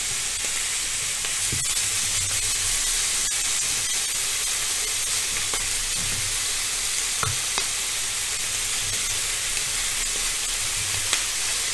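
Chicken drumsticks sizzling steadily on a hot ridged grill pan as sauce is brushed onto them, with a few light knocks.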